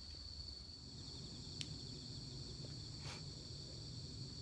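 Crickets trilling steadily in one high, continuous tone over a low hum, with a single sharp click about one and a half seconds in and a brief rustle about three seconds in.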